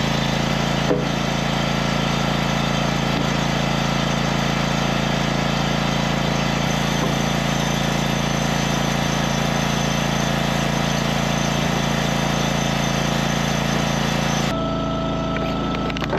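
Wood-Mizer FS500 log splitter's gas engine running steadily at a constant speed, with a single click about a second in. The sound changes abruptly near the end.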